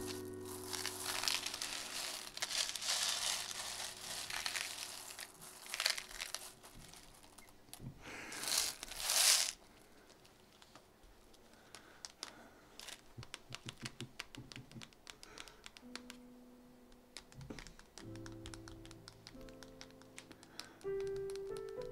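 Small plastic LEGO pieces rattling and clicking as hands stir and scoop them in a plastic tub, loudest in a rush of pieces about eight to nine seconds in, then thinning to scattered single clicks. Soft background music with held notes plays under it at the start and again near the end.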